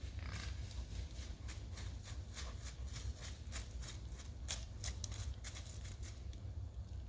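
Buck deer's rut clicking: a quick series of sharp clicks, about three or four a second, that stops about six seconds in. It is a buck courting a doe during the rut.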